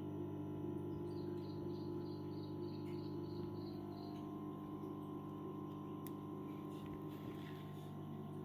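A steady low hum made of several held tones. About a second in, a faint run of short high chirps comes at about four a second for a few seconds.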